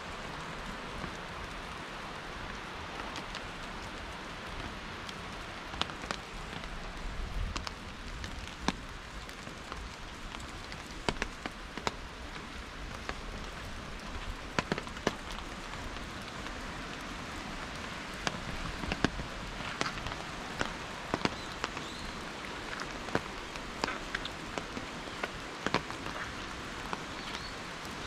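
Steady rain falling, with many individual drops striking nearby surfaces as sharp, irregular ticks. A few short high chirps come through in the last third.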